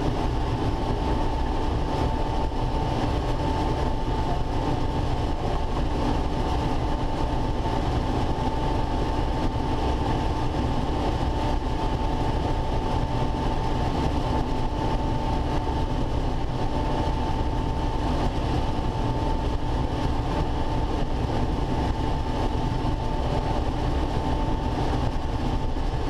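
Combine harvester running steadily while cutting standing corn, with a constant machinery hum and a steady high-pitched whine over it.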